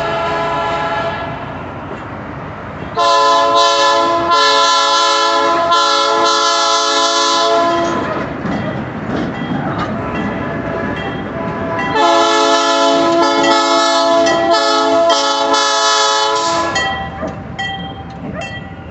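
Locomotive air horn sounding two long, loud blasts of about five seconds each, with the rumble of the passing train between them.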